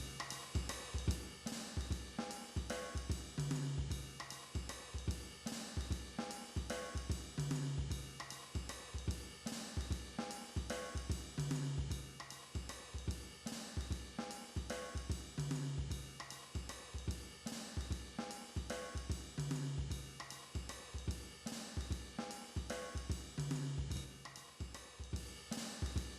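Music starting suddenly: a steady drum beat of cymbals, hi-hat, snare and bass drum, with a low bass note returning about every four seconds.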